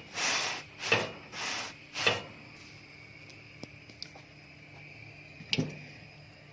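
Cookware being handled in the kitchen: a quick run of short scraping swishes, about two a second, over the first two seconds. After that come a few faint clicks and a single sharp knock near the end.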